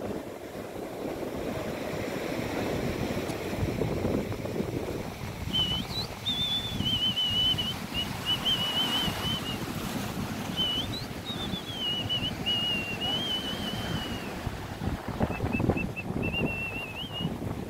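Sea surf breaking on a sandy beach, with wind buffeting the microphone. From about five seconds in, a high, wavering whistle comes and goes in three long stretches.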